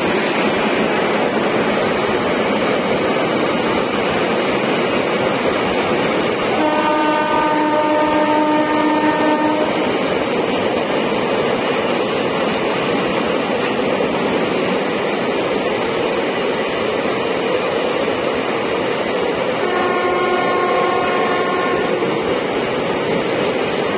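Loaded container freight train on flat BLC wagons running through at speed: steady noise of wagon wheels on the rails. A locomotive horn sounds twice over it, about three seconds long some six seconds in and about two seconds long near the end.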